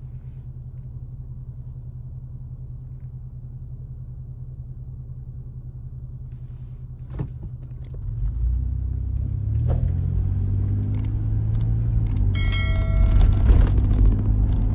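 Car engine heard from inside the cabin, idling with a steady low hum. About eight seconds in, the engine and road rumble grow louder as the car pulls away, with a couple of clicks. A short high chime sounds near the end.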